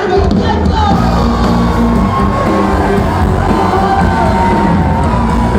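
Loud music with singing, with a crowd shouting and whooping over it.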